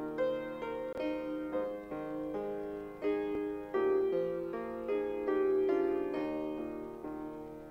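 Slow, gentle piano music: a melody over held chords, each note struck and left to ring.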